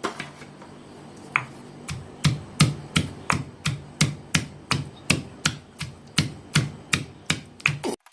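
Ginger and garlic being crushed by hand-pounding: a few spaced knocks, then steady strikes about three a second, each a dull thud with a sharp click.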